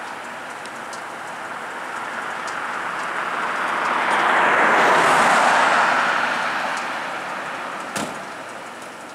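A vehicle passing by on the road, its tyre and engine noise swelling to a peak about five seconds in and fading away. A single sharp knock comes near the end.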